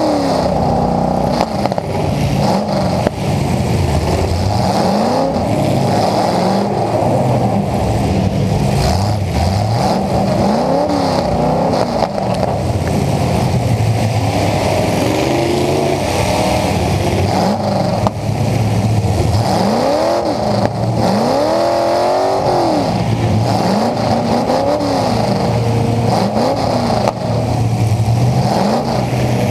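Full-size demolition derby pickup truck's engine revving up and down again and again as the driver accelerates and backs off, heard loud from inside the stripped cab, with a few sharp knocks.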